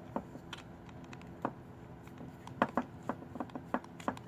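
Scattered small clicks and taps from a jump-starter battery clamp and its parts being handled and worked open by hand, coming closer together and louder in the second half.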